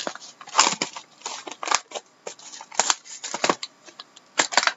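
Sealed trading-card hobby box being torn open and handled: irregular short rustles and crackles of wrapping and cardboard, with a few sharp clicks.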